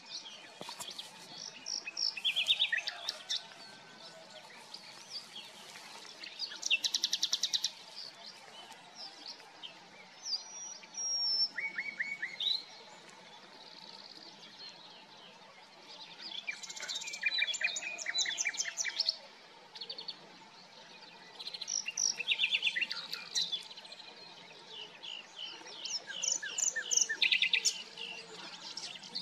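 Common nightingale singing in separate phrases a few seconds apart, about six in all. Each phrase mixes fast runs of repeated notes with short, clear whistles.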